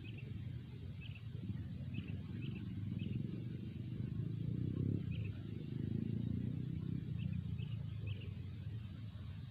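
Wind rumbling on the microphone, with a dozen or so short, high bird chirps scattered through it.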